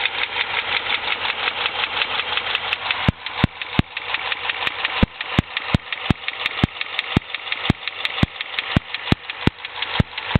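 2006 Dodge Charger SRT-8's 6.1-litre Hemi V8 idling with a fast, steady ticking from the valvetrain, the sign of a stuck hydraulic lifter on the top right of the engine. About three seconds in, sharper, louder clicks join at roughly two a second.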